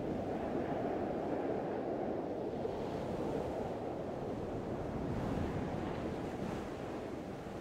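Ocean surf and breaking waves, a steady rush of rough water, with wind blowing across the microphone.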